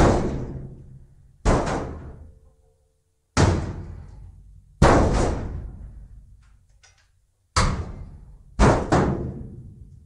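Empty steel dumpster struck with hollow blows, about six of them at uneven spacing, two landing as quick double hits. Each clang rings and fades away over a second or two.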